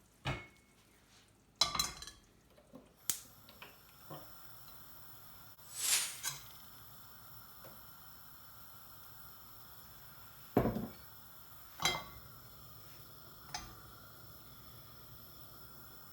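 Cooking pans and metal utensils knocking and clinking against each other and the stovetop, about six separate knocks spread out over the stretch, with a faint steady hum setting in about three seconds in.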